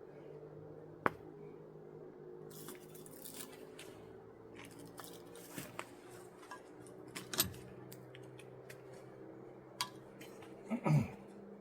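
Scattered clicks, light metal clinks and short scrapes of hand tools prying copper windings out of a torn-down electric motor. The sharpest click comes about a second in and the loudest scrape near the end, over a faint steady hum.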